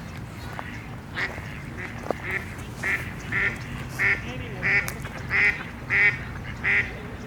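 Pond waterfowl calling: a regular series of loud calls, about one every two-thirds of a second, starting about a second in and growing louder.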